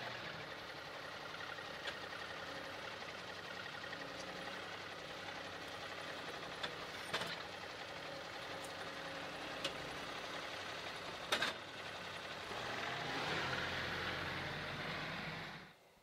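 John Deere compact tractor's engine running steadily as it drives its front loader with pallet forks up to a log pile, with a couple of sharp clicks along the way. The engine gets louder for about three seconds near the end, then cuts off suddenly.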